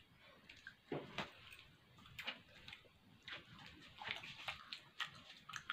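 Faint, scattered clicks and soft mouth sounds of eating, with small handling noises.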